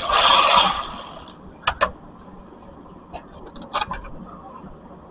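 Hand tools on the compressor's mounting bolts: a loud rushing noise fades out in the first second, then two sharp metallic clicks, and a little later a quick cluster of clinks and small ticks of tool on metal.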